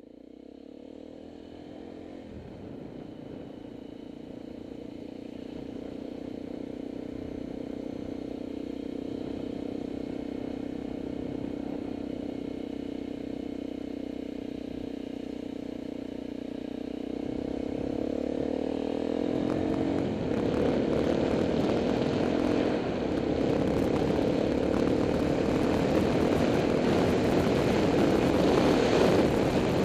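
Motorcycle engine running at a steady cruise, heard from the bike itself, fading in and growing louder. A rushing wind and road noise on the camera microphone builds in the second half.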